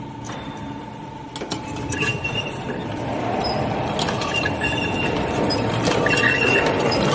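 CS-A traditional-twist barbed wire machine running just after a restart, its gears and twisting head clattering with metallic clinks and short high squeaks. It gets louder from about two seconds in as it picks up.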